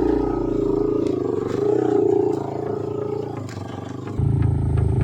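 Motorcycle engine running, easing off a little after about two seconds. About four seconds in, the sound switches abruptly to a louder, deeper engine note.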